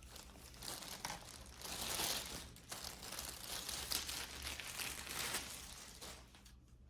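Crinkling and tearing noise, like a wrapper or packaging being handled, uneven and loudest in the middle, fading near the end.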